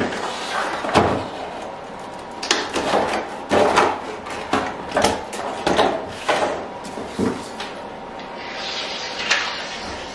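Irregular knocks and clicks of a metal and plastic auto-lock T-track clamp being handled and fitted at a workbench, with a short scraping sound near the end.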